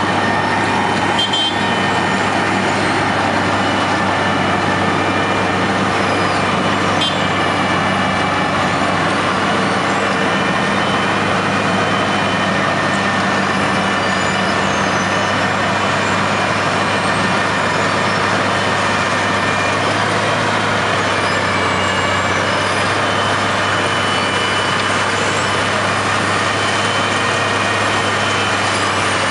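Heavy diesel road-works machinery running steadily, an unbroken engine drone with a constant low hum and a few steady higher whining tones.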